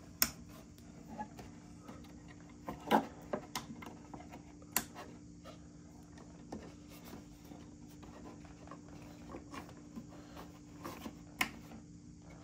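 Scattered small plastic clicks and taps as elastic ropes are slid onto and stretched between the plastic corner posts of a Mattel Knuckle Crunchers toy wrestling ring, a handful of sharp knocks over a faint steady hum.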